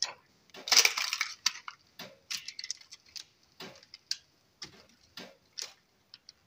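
Metal kitchen tongs clicking and scraping as air-fried chicken drumsticks are turned over on parchment paper in a wire basket. It comes as an irregular run of short knocks and rustles, the busiest patch about a second in.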